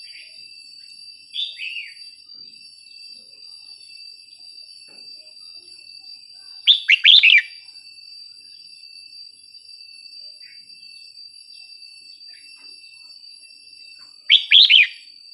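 A red-whiskered bulbul singing. It gives a soft short call about a second and a half in, then two loud, quick phrases of under a second each, about halfway through and near the end.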